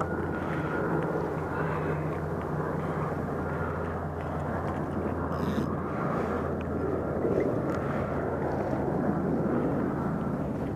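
Steady low drone of distant engines, with a brief high hiss about halfway through.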